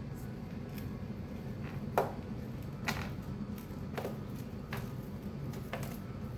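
A handful of light clicks and taps, roughly one a second, the sharpest about two seconds in, over a steady low hum.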